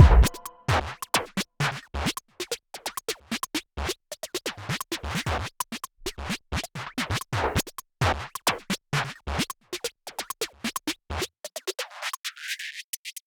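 Background music drops into a sparse break of quick, irregular scratchy strokes, like DJ scratching. Near the end the low end drops away, then the full music comes back.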